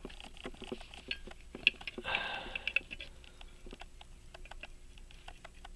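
Light metallic clicks and taps of small pocket watch parts being worked and forced into place, with a brief scraping rub about two seconds in.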